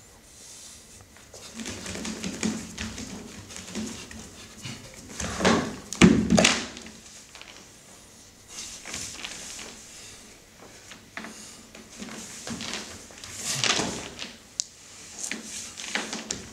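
A performer's non-speech vocal sounds in irregular bursts, with a sharp thump about six seconds in as her body drops from a stool to the floor.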